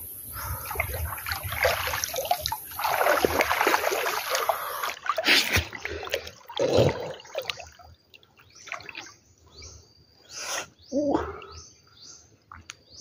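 Floodwater sloshing and splashing as a person wades and swims chest-deep through it, busiest in the first few seconds and then in separate splashes. Short high chirps come in over the quieter second half.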